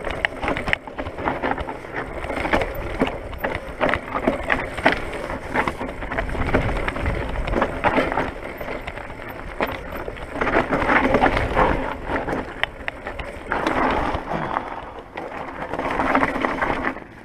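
Mountain bike descending a rough dirt trail: tyres rolling and crunching over ground and stones, with many quick clicks and rattles from the bike over bumps, swelling and easing every few seconds.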